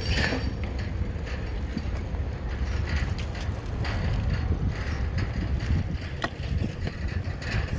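Wind buffeting the microphone as a bicycle rides along, a steady rumble with scattered light clicks and rattles from the bike.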